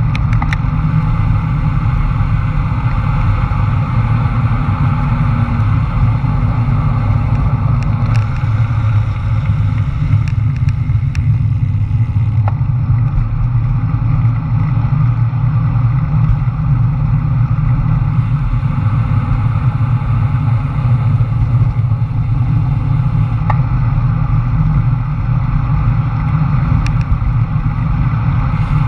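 Loud, steady wind rumble over the microphone of a camera riding on a road bike descending at speed, mixed with the rush of tyres on asphalt.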